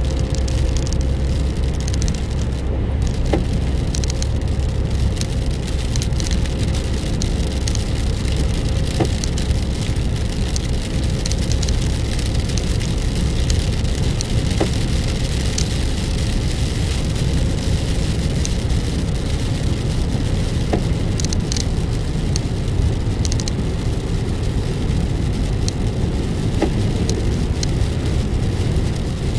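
Steady road and engine noise heard inside a car cabin, with tyres running on a wet road, and scattered ticks of raindrops hitting the windscreen.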